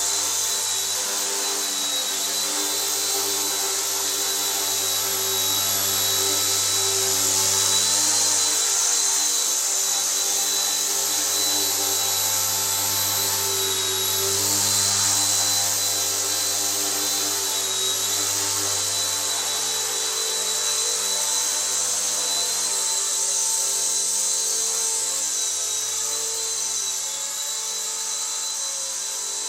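RC ERA C138 Bell 206 micro RC helicopter hovering: the electric motors give a steady high whine over the hiss of the rotor blades. The whine swells and eases slightly as the throttle is worked.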